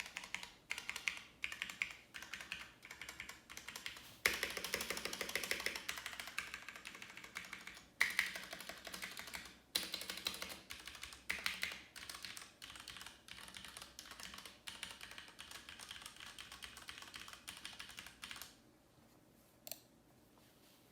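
Mechanical keyboard being typed on: a steady run of key clicks, densest and loudest from about four to six seconds in, stopping a couple of seconds before the end.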